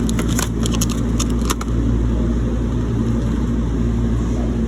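Several sharp clicks and crinkles of food packaging being handled in the first second and a half, over a steady low hum.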